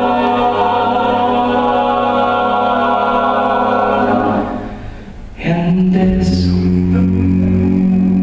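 Mixed a cappella choir holding a wordless chord over a deep bass note. About four and a half seconds in it dies away briefly, then a new chord comes in with a strong low bass.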